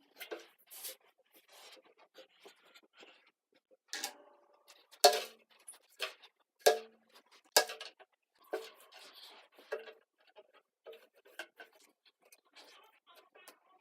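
Hard objects being handled and set down: scattered light clicks and rustling, with a few sharper knocks in the middle.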